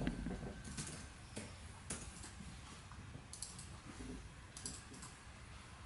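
Faint, scattered keystroke clicks from typing on a laptop keyboard, single taps and short runs of a few keys with pauses between, over a low room hum.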